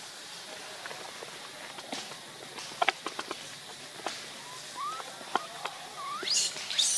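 Baby macaque giving short rising squeaks: a few quick ones from about four and a half seconds in, then a higher, louder squeal near the end. A cluster of sharp ticks comes about three seconds in.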